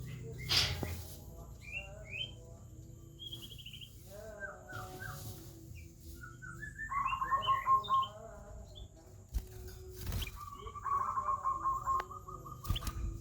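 A kutilang emas, a bulbul, singing in phrases of short chirps and whistles, including stretches of fast repeated notes. A few sharp knocks are heard among the song.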